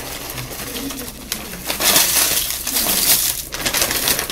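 White corn tortilla chips shaken out of a crinkling plastic chip bag, rattling and sliding into a glass baking dish in irregular bursts.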